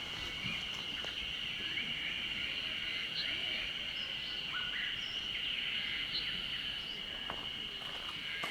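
Outdoor ambience of a steady, high insect drone with scattered bird chirps.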